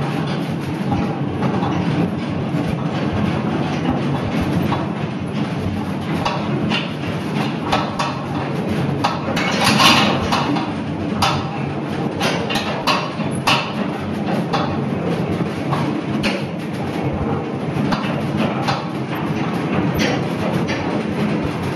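Small narrow-gauge steam locomotive and its carriage running along the line, heard from just behind the footplate: a steady low rumble with frequent clicking and knocking from the wheels and couplings. A brief louder hiss comes about ten seconds in.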